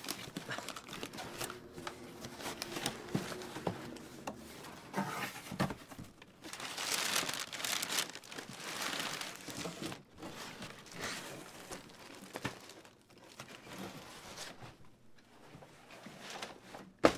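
Packing paper and plastic wrap crinkling and rustling as a plastic-wrapped bag is worked out of a cardboard shipping box, with cardboard flaps scraping; the rustling is heaviest in the middle. A single sharp knock near the end.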